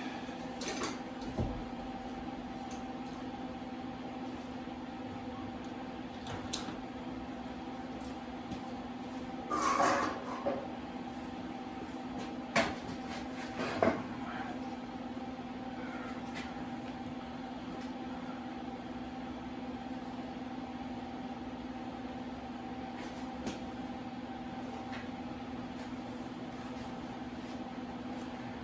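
A steady mechanical hum with a few scattered knocks and clatters over it. The loudest is a brief rattling clatter about ten seconds in, followed by two sharp knocks a little after.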